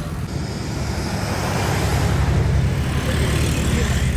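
Street traffic rumble, with a vehicle passing close that grows louder a little before halfway and stays loud to the end.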